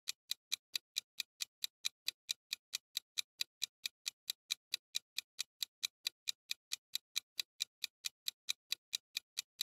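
Ticking-clock sound effect running under a countdown timer: quick, even ticks, about five a second, steady throughout.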